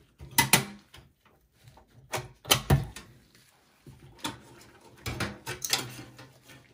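A series of sharp metallic clicks and knocks as a desktop PC's power supply is released from its retaining clip with a flat-head screwdriver, slid along the steel chassis and lifted out.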